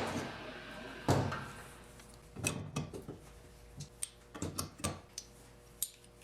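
Metal engine parts being handled and set down on a workbench during reassembly of a small single-cylinder motorcycle engine: a sharp knock at the start, a heavier knock about a second in, then scattered light clicks and taps.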